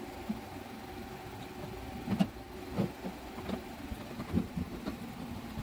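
Small irregular clicks and scrapes of a screwdriver turning the terminal screws on a solar charge controller, over a steady low hum.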